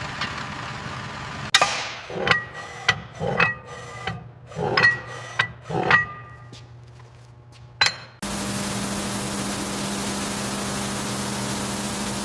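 Metal being struck again and again: about ten sharp knocks with a short ringing tone, close together over four seconds, then one more a couple of seconds later. Before and after the knocks there is a steady, noisy machine hum, which starts and stops abruptly.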